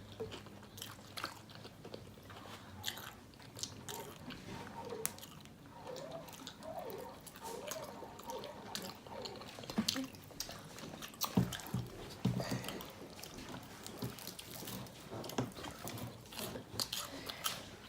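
Close-miked biting and chewing of crispy fried chicken, with many short crunches of the breading. A few dull thuds come near the middle, which the eaters put down to someone walking back and forth in the house.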